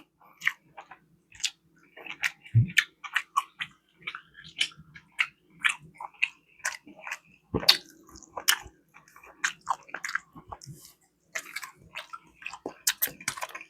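Close-miked chewing of food, with irregular wet mouth smacks and clicks, and two heavier knocks, one about two and a half seconds in and another near eight seconds.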